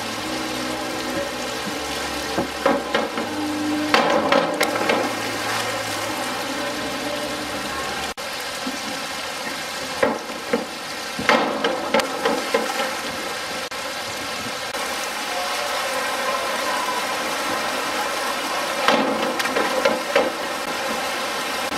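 Steady hiss of moving pool water, broken by louder bursts of splashing as divers go off the springboard and into the water: about four seconds in, around eleven to twelve seconds, and near the end.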